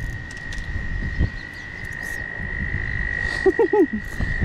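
A frog trilling: one long, steady high note held without a break, with a few short lower calls about three and a half seconds in.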